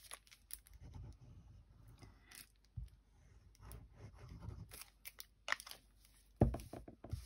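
Quiet handling of cardstock and a squeeze bottle of liquid glue, its tip scraping along the paper, with small clicks and a few short knocks on the work mat, the loudest in the last two seconds.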